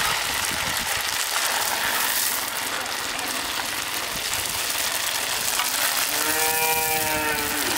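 Vermicelli (semiya) mixture dough frying in hot oil, a steady sizzle. Near the end a single drawn-out call rises and then falls in pitch, lasting about a second and a half.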